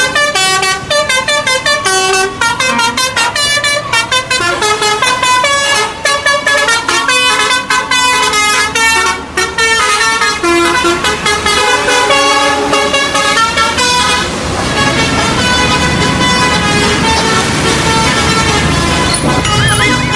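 Multi-tone 'telolet' horn on a diesel locomotive playing a quick tune of short, changing notes. About fourteen seconds in, the tune gives way to a steadier, noisy rumble and hiss.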